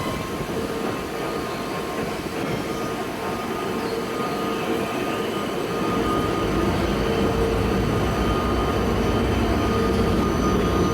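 Steady machinery din of a coal-fired steamship's boiler room underway, with a steady whine over it; the low rumble grows a little louder about halfway through.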